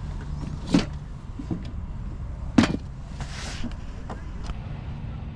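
Two sharp knocks about two seconds apart, the second the louder and followed by a short hiss, over a steady low hum.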